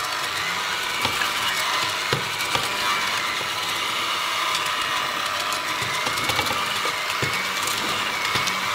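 Electric mixer with twin beaters running steadily, creaming butter and sugar in a bowl. Its whine wavers slightly in pitch, and sharp clicks come now and then as the beaters knock the bowl.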